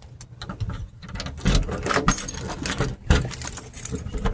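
Footsteps and handling noise from someone walking: a string of irregular knocks, clicks and rustles, busiest from about halfway through.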